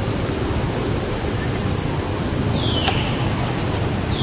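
Steady outdoor background rumble and hiss, with two short high chirps falling in pitch, one about three seconds in and one near the end.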